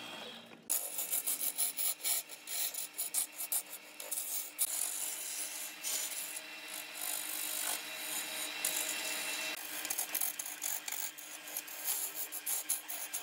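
Wood lathe spinning a large wooden blank while a hand-held turning tool cuts into it: a continuous rough scraping and shaving sound over a steady faint hum.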